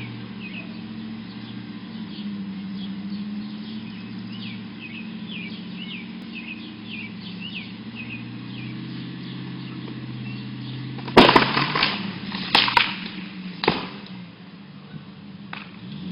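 A Jeep engine runs steadily while small birds chirp. About eleven seconds in, a tree branch pulled by the Jeep cracks and tears loose in three loud crackling bursts over two to three seconds.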